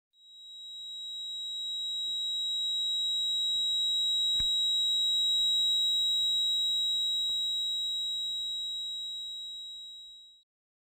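Ear-ringing sound effect: a single steady high-pitched tone that fades in slowly, holds, and fades out slowly near the end.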